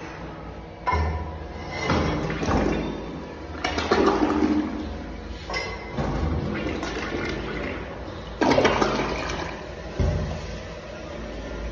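Helvex toilet flushing: water rushes and swirls down the bowl, starting about a second in and surging several times as it drains.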